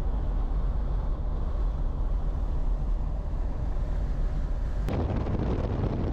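Steady road and wind noise of a car driving on the highway, a low rumble with no let-up. About five seconds in, the noise changes abruptly to a rougher rumble.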